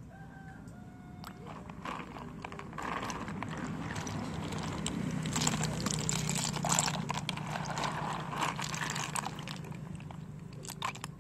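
Wet freshwater snail shells clicking and knocking together as a handful is scooped from a basin of water, with splashing and dripping. The clicking is busiest from about two seconds in until near the end, over a steady low hum.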